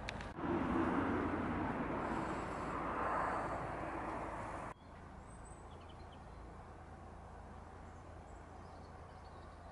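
Steady outdoor background noise with no distinct source, louder for the first few seconds, then dropping suddenly to a quieter hiss about five seconds in.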